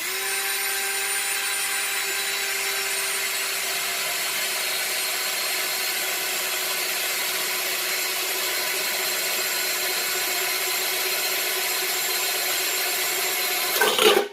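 Electric drill running steadily as it bores a hole through a bottle's lid, with a brief louder surge just before it stops suddenly near the end.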